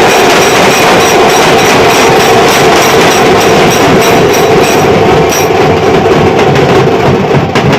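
Loud, dense street drumming on large bass drums beaten with sticks, with a fast even beat of about four strokes a second that breaks up about five seconds in.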